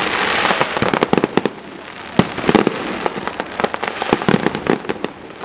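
Fireworks display: a rapid, irregular string of sharp bangs and crackles from aerial shells bursting. It opens with a hiss lasting about a second.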